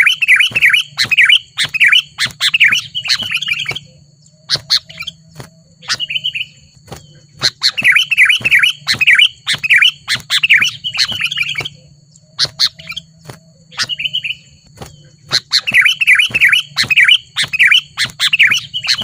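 Sooty-headed bulbul (kutilang) calling in loud, rapid chattering runs of three to four seconds, three times, with single short calls in between.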